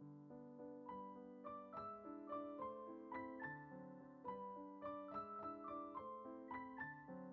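Soft background piano music: a gentle melody of single notes over sustained lower notes, with new notes struck every half second or so.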